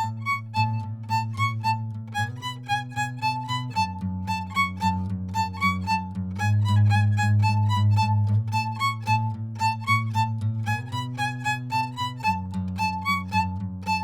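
Instrumental band music: a violin plays a quick run of short notes over sustained low bass chords that change every couple of seconds.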